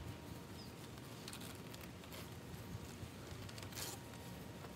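Faint scratching and rubbing with a few light clicks, as hands work a stiff rubber coolant hose and its hose clamp loose on a V8 marine inboard engine.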